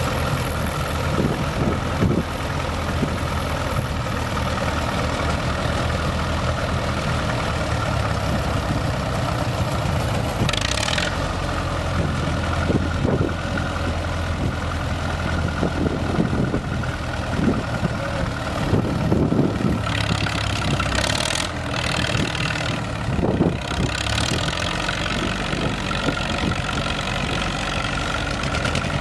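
Fiat 850 4x4 tractor's diesel engine running steadily under load, mixed with the engines of other vintage tractors, its speed changing a few times about two-thirds through.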